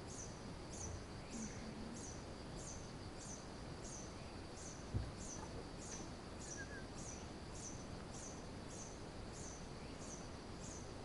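Rainforest ambience led by a high, thin chirp that falls in pitch, repeated steadily about twice a second, typical of a hermit hummingbird singing, over a faint steady high insect drone. A single soft thump about halfway through.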